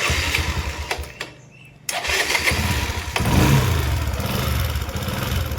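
Bajaj Discover 100's single-cylinder four-stroke engine being started on the electric starter: a first burst, a short pause, then it catches about two seconds in, revs up briefly and settles into idle. It has a light tick that the mechanic takes for a loose tappet needing adjustment.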